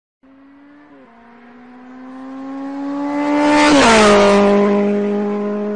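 A motor vehicle's engine passing by. A steady hum swells louder, drops in pitch as it passes about four seconds in with a rush of noise, then eases off slightly before cutting off abruptly.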